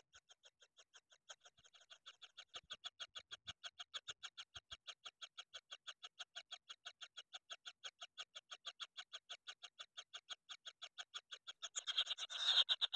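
Nine-day-old kingfisher nestlings calling in a steady, rapid train of short calls, about five a second, faint at first and louder after a couple of seconds. Near the end a brief scuffling noise comes as the chicks jostle.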